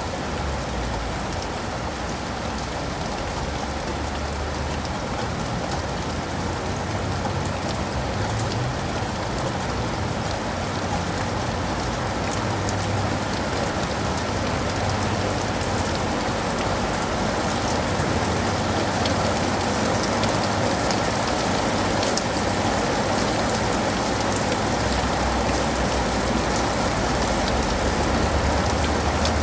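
Steady rain falling, with many individual drops ticking close by over a low rumble, slowly getting a little louder.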